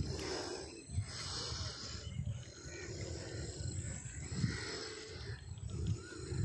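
Close handling noise on the microphone: irregular low rumbles and bumps with short rustling hisses, as a caught fish is gripped and turned over in the hands.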